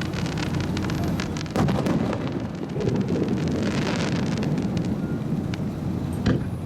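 Fireworks going off: a sharp boom about a second and a half in and another near the end, with a spell of dense crackling in between and a low rumble throughout.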